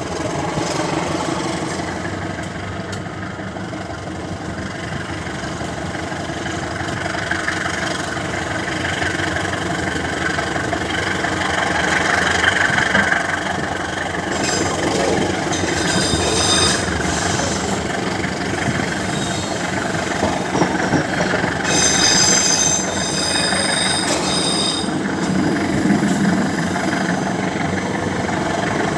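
GE CC201 diesel-electric locomotive's V8 diesel engine running hard under load as the train accelerates away from a station, with steady wheel-on-rail running noise, growing slightly louder. Two stretches of a high ringing tone sit over it, about halfway through and again after about twenty seconds.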